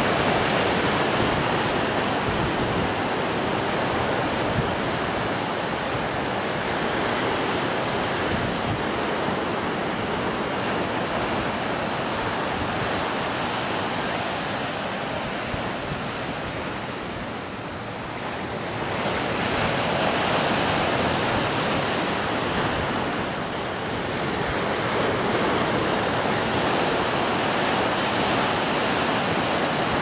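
Caribbean Sea surf breaking on a rocky shore: a continuous rush of breakers that eases briefly a little past halfway, then swells back up, easing again for a moment a few seconds later.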